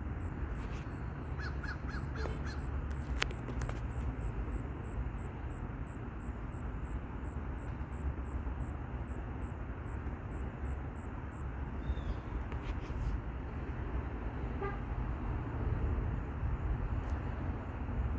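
Outdoor background noise with a steady low rumble and a few short calls, a quick run of them about two seconds in and one more near the end. The awaited warning siren does not sound: the scheduled test has not started.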